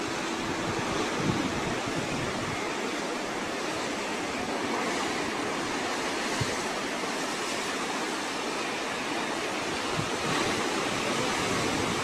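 Ocean surf breaking and washing over a rocky shore, a steady rush of water, with some wind on the microphone.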